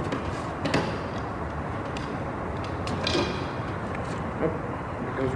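A few light clicks and taps of aluminium door profiles being handled and fitted together while the screw hole is lined up, over a steady low background hum.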